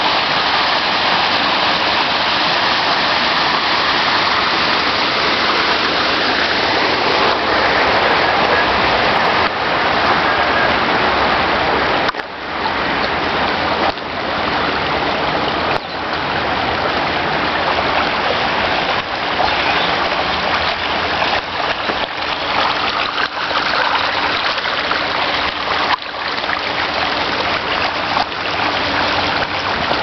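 Water from a burst water main gushing up through the road surface and rushing along the gutter, a steady loud rush with a few brief dips in level from about twelve seconds in.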